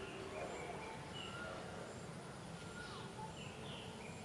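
Faint bird calls: short whistled notes at several different pitches, scattered through quiet outdoor background noise.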